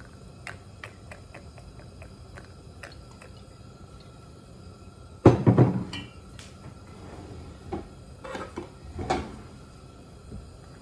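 Kitchen handling sounds: a few faint ticks, then one sharp knock about five seconds in, followed by a few lighter knocks and clatters, as things such as a glass oil bottle and the wok are handled and set down.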